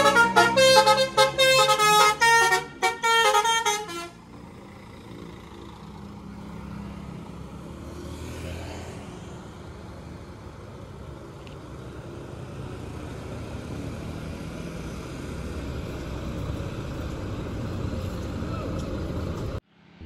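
Multi-tone telolet bus horn playing a quick melody of short notes, stopping about four seconds in. After it comes the steady rumble of the bus and motorcycles passing on the road.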